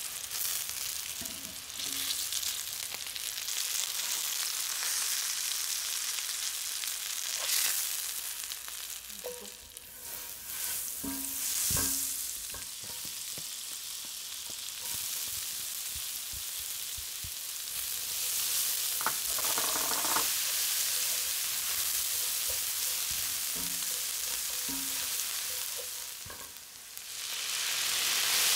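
Cod fillets, then minced garlic and shallot, sizzling in butter and oil in a frying pan, with a spatula now and then knocking and scraping against the pan. Near the end, lemon juice poured into the hot pan sets off a sudden, louder sizzle.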